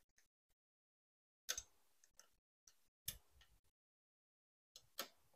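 Scattered sharp clicks and knocks of hands working at a car door's side-mirror mount and wiring harness, the strongest about one and a half and three seconds in.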